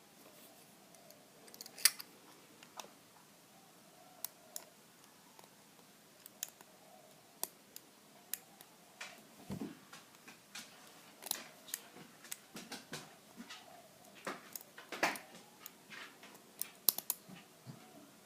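Irregular small metallic clicks and scrapes of a hook pick and tension wrench working the pins inside an all-brass padlock, with a few sharper clicks about 2 s in, around 15 s and near the end.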